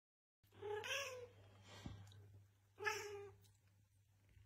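Bengal cat meowing twice, two drawn-out meows about two seconds apart, with a third starting at the very end.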